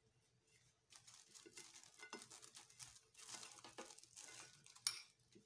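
Thin, dry warqa pastry sheets crinkling and rustling in uneven bursts as they are folded and pressed by hand, starting about a second in. A single sharp click comes near the end.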